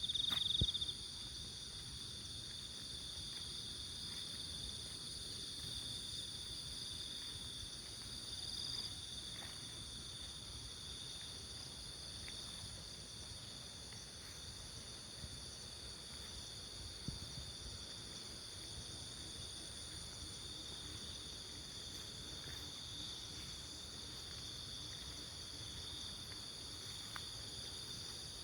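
A steady chorus of crickets, several insects trilling together at different high pitches without a break, slightly louder in the first second. A low, even background rumble of outdoor ambience lies underneath.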